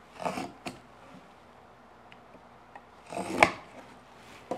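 Marking knife scored across a row of clamped wooden lattice bars along a steel rule: two short scrapes about three seconds apart, with a light click after the first.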